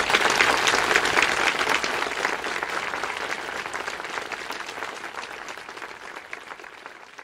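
Audience applauding, loudest at the start and fading out gradually.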